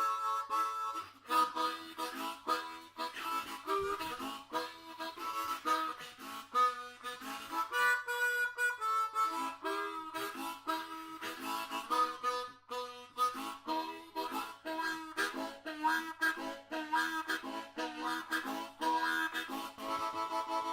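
Background music: a harmonica tune of quick, changing notes over a steady rhythm.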